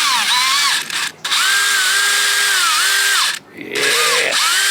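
Electric drill boring out a broken thermostat-cover bolt on an outboard motor. It runs in three or four bursts with short pauses, and its whine sags in pitch as the bit bites and then recovers.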